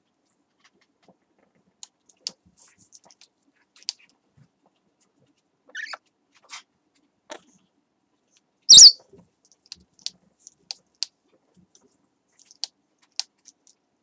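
Pet parrots, an African grey and a green parrot, making scattered short clicks and brief chirps, with one loud, shrill squawk about nine seconds in.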